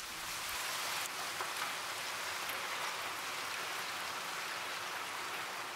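Steady rain falling, a dense hiss of drops that fades up over the first second and then holds.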